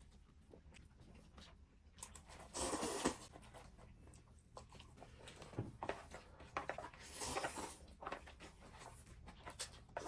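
Ramen noodles being slurped and eaten: a few noisy slurps, the loudest about two and a half seconds in and another around seven seconds, with small clicks between.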